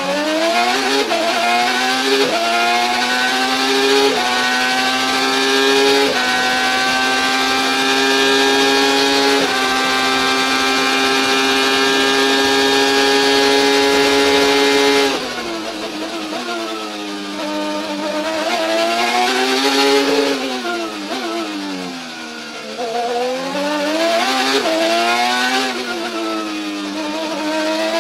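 Onboard IndyCar twin-turbo V6, its sound pitched up to imitate a 20,000 rpm rev limit, accelerating hard up through the gears, the pitch climbing and dropping back at each upshift. About halfway through it falls away sharply under braking, then the revs rise and fall through a run of corners.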